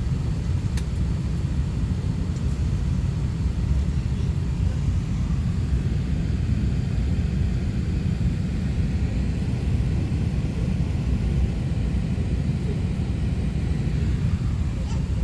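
Airbus A380-800 cabin noise heard from a passenger seat: a steady low rumble that holds even throughout.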